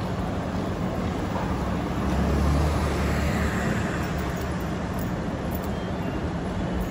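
City street traffic noise: a steady wash of vehicles, with a louder low rumble swelling about two seconds in and fading about a second and a half later.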